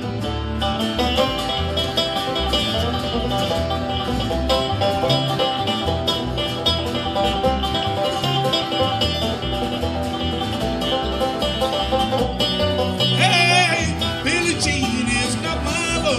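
Bluegrass band of banjo, acoustic guitar and upright bass playing an instrumental break: fast picked banjo notes over a steady bass and strummed guitar rhythm. A bending, wavering high note rises over the band about thirteen seconds in.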